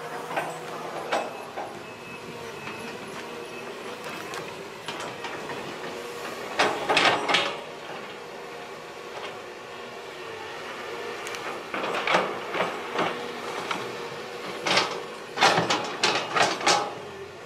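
Long-reach excavator running, a steady engine and hydraulic hum with spells of metallic clanking and rattling about seven seconds in, again around twelve seconds, and a longer run near the end.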